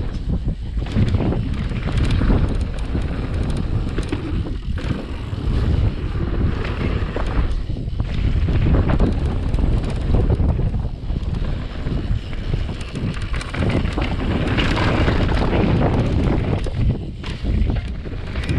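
Wind buffeting the microphone: a loud, rumbling rush with a few short lulls.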